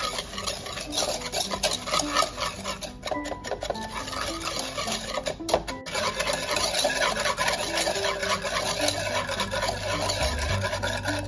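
Curd and sugar being whisked in a bowl: fast, continuous scraping and tapping strokes of the whisk against the bowl, pausing briefly twice.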